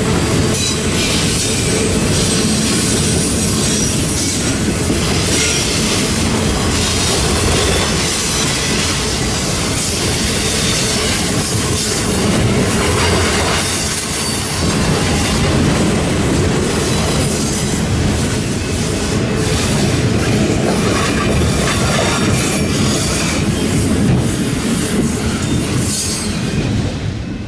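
Freight train of autorack cars rolling past at close range: a steady loud rush of steel wheels on rail with clatter, falling away near the end as the last car goes by.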